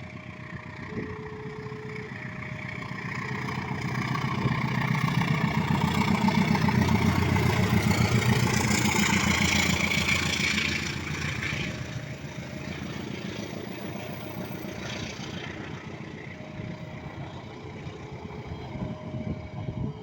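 A train passing close by, its rumble and rush swelling to a peak and dropping off sharply about eleven seconds in. Throughout, a level-crossing alarm sounds two alternating tones, about one a second.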